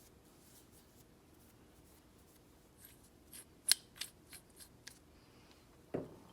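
A quick run of light metallic clicks and scrapes as small starter parts are handled on the bench, then a dull knock near the end.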